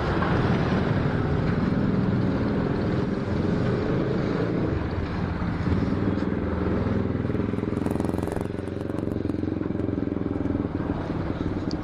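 Petrol dispenser pumping fuel through the nozzle into a motorcycle's fuel tank: a steady mechanical hum with the rush of fuel, and a short hiss about eight seconds in.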